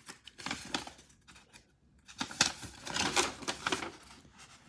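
A cardboard mail box and its packing being opened and handled: rustling, tearing and small clicks in two spells, the busier one starting about two seconds in.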